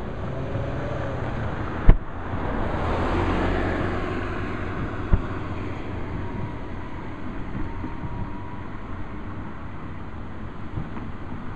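Fireworks: a sharp, loud aerial shell burst about two seconds in, followed by a couple of seconds of rushing, hissing noise, and a second, smaller bang about five seconds in, over a steady background rumble.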